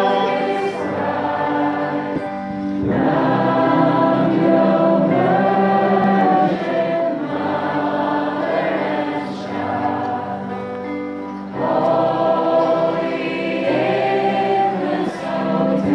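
Many voices singing a Christian hymn together as a choir, in long held phrases with short breaks between them, over a steady low note.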